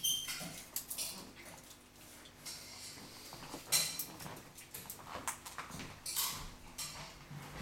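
A cat eating canned food from a stainless steel bowl: irregular wet chewing and licking, with the bowl clinking now and then.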